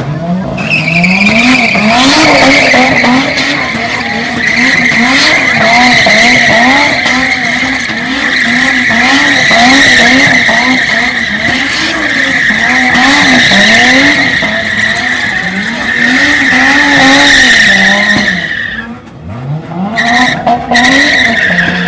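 Drifting car's tyres squealing in a long, steady, high squeal while its engine revs rise and fall over and over under throttle. The squeal breaks off briefly about nineteen seconds in, then starts again.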